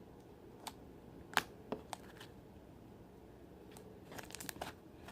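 Fluffy slime being handled: scattered small sharp pops and crackles, a few in the first two seconds and a quick cluster near the end.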